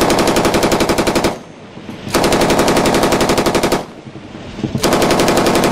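Ship-mounted belt-fed general-purpose machine gun firing three long, rapid bursts of automatic fire, each about one and a half to two seconds long, with short pauses between them.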